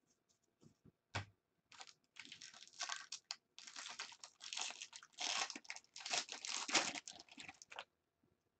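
Foil card-pack wrapper crinkling and tearing as it is opened by hand, in irregular bursts for about six seconds, after a single sharp tap about a second in.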